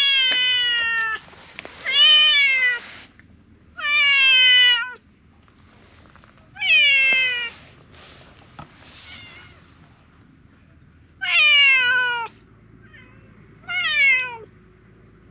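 Silver tabby cat meowing loudly: six long meows, each about a second long and falling in pitch, with pauses of one to three seconds between them.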